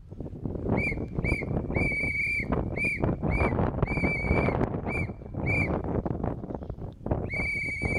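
A small hand-held whistle blown in a short-short-long rhythm, three rounds of two quick toots and a longer held blast at one steady high pitch, the last long blast starting near the end. It is sounded as a wake-up call.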